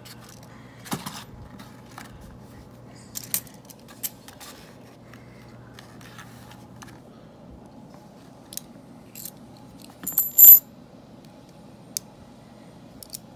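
Half-dollar coins clinking against each other as a roll is unwrapped from its paper and the stack is thumbed through. There are scattered light clicks, and one louder ringing clink about ten seconds in.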